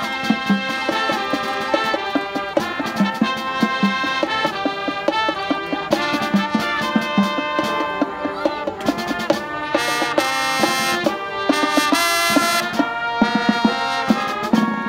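High school marching band playing: trumpets, trombones and saxophone carrying the tune over percussion hits and a mallet keyboard.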